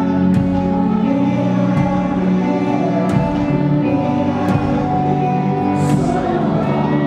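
A contemporary Christian pop-rock band playing live, a slow passage of long held chords with a few light percussive strokes.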